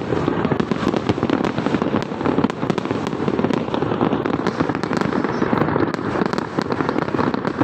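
Fireworks display going off in a dense, continuous barrage of rapid bangs and crackling, with no pause.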